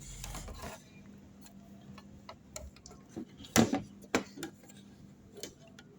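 Hands handling the PS5 motherboard and tools on a workbench: a short rustle, then a few sharp clicks and taps, the loudest about three and a half seconds in, with two more a little after, over a faint steady hum.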